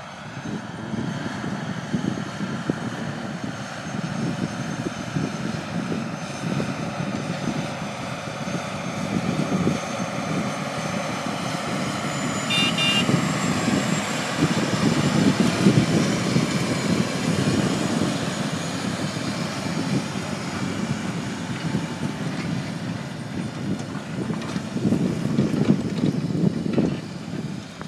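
John Deere 9330 four-wheel-drive tractor running steadily under load as it pulls a field cultivator through tilled soil. It grows louder as it passes close, about halfway through.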